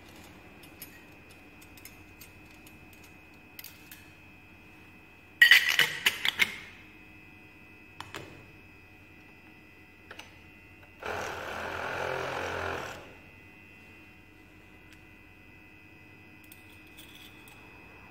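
Glass pipettes clattering against a stainless steel pipette canister as it is handled: a quick run of sharp clinks about five seconds in, the loudest sound, with a few lighter clicks around it. About eleven seconds in comes a two-second rush of noise.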